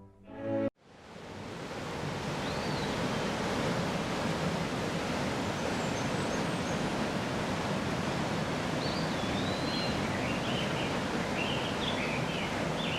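Steady outdoor rushing noise with no engine or tool pitch in it, fading in over the first second. A few faint high, wavering chirps come through, once early and several times near the end.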